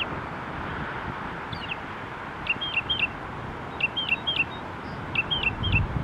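Northern mockingbird singing. Two single sweeping notes come first, then the same short three-note phrase is repeated three times, over a steady background hiss.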